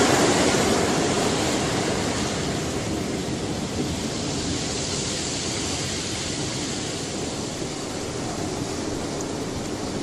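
Surf breaking on the beach and against concrete tetrapods, a steady rush of water that is loudest at the start and slowly eases off.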